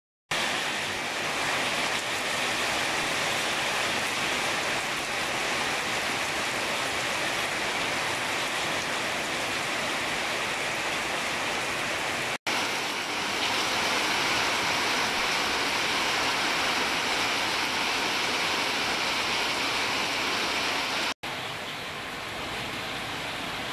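Steady downpour of rain on leafy garden plants and wet concrete. The sound cuts out for an instant twice. Near the end it gives way to a quieter, duller rush of rainwater running along a concrete drain channel.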